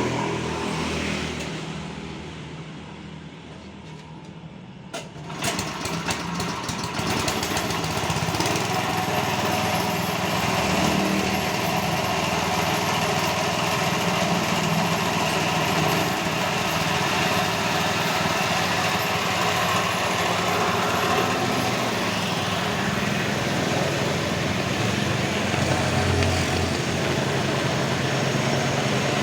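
Small engine of a concrete vibrator machine starting about five seconds in, after a few sharp clicks, then running steadily at speed and driving the vibrator's flexible shaft.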